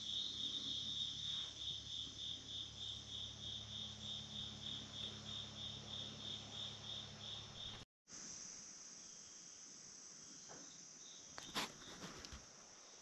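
A cricket chirping steadily, about three high chirps a second, over a low hum; it stops abruptly about eight seconds in, leaving faint room tone with a couple of small clicks near the end.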